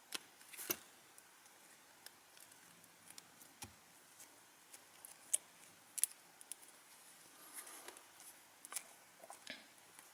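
Irregular faint clicks and small taps as a replacement display is pressed and seated into a smartphone's frame, with a few sharper clicks among them.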